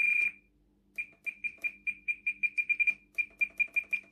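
Spektrum DX6 radio transmitter beeping with each click of the steering trim, short high beeps about five a second. There is a longer beep at the start, then a pause of about half a second before the rapid clicking resumes. The trim is being stepped to bring the steering servo and front wheels straight.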